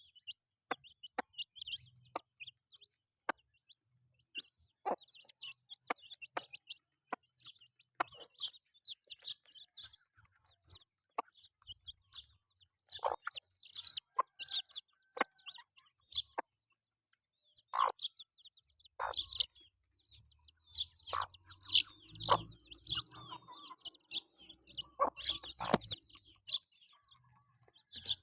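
Chickens clucking and chirping softly while foraging, with many short high calls and sharp clicks scattered throughout, busier in the second half.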